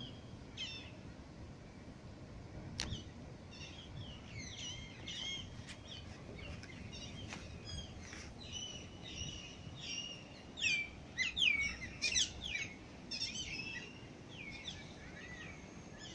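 Birds chirping and calling, with quick repeated notes and falling whistles, busiest and loudest about two-thirds of the way through, over a low steady background rumble. A single sharp click about three seconds in.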